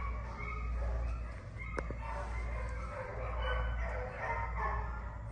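Several dogs barking and yipping, overlapping, over a steady low hum. There is one sharp click about two seconds in.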